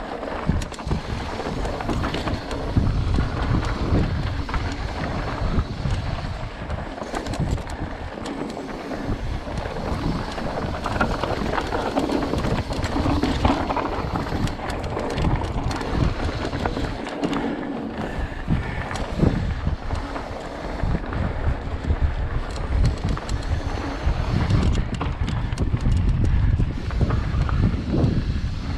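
Giant Reign SX 29 full-suspension mountain bike ridden down rocky dirt singletrack: wind buffeting the microphone, tyres crunching over dirt and loose rock, and the bike clattering over bumps.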